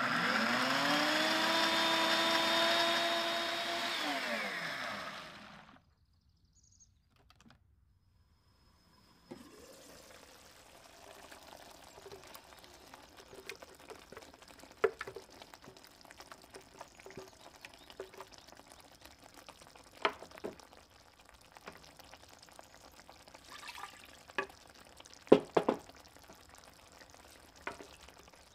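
Countertop blender blending chickpeas and water: the motor whine rises as it speeds up, holds steady for about four seconds, then winds down. After a short silence, the chickpea purée is poured from the blender jug into a pan of sauce, with a faint hiss and a few sharp knocks, the loudest near the end.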